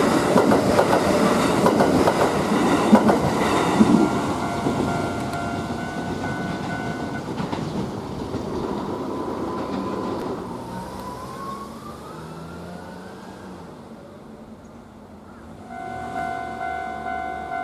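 Electric commuter train of the Kintetsu Nara Line running through a Japanese level crossing, wheels clattering over the rail joints, then fading as it moves away with a faint rising whine. The crossing's warning bells ring in a steady 'kan-kan' until about seven seconds in, stop, and start again near the end, signalling the next train.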